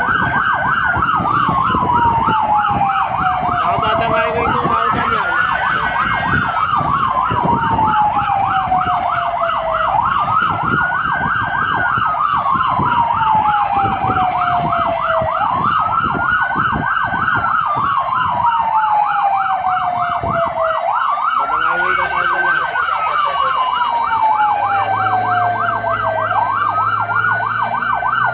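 Fire engine's electronic siren heard from inside its cab on an emergency run. A wail rises quickly and falls slowly about every five and a half seconds, layered over a rapid yelp, with engine and road rumble underneath.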